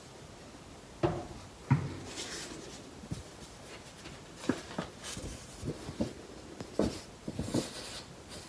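Handling noises: two sharp knocks about a second in as the webcam is set down on a wooden desk, then the rustling and light taps of a paper quick-start booklet being picked up and opened.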